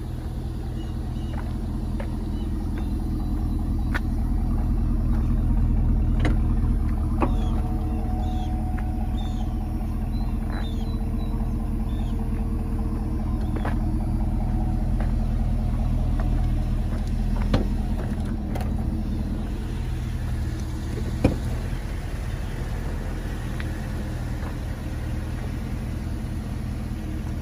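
GMC Yukon Denali's V8 engine idling steadily, with a few clicks and knocks over it.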